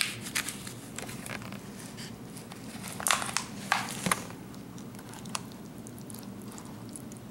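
A slotted metal spatula scraping and scooping pie out of a disposable aluminium foil pie pan, the foil crinkling. Scattered short scrapes and clicks, the loudest a little after three seconds in and again about four seconds in.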